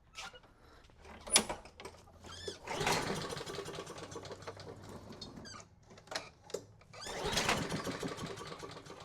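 Honda lawn mower engine being pull-started twice with the recoil starter, cranking without catching even with carb cleaner sprayed into the intake, after a sharp snap about a second and a half in.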